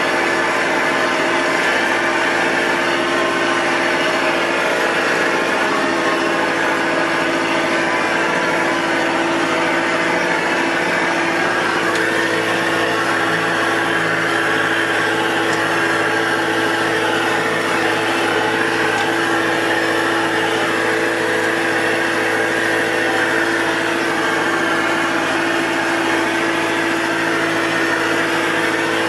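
John Deere loader's engine running steadily as the machine drives, heard from inside its cab: an even, unbroken drone.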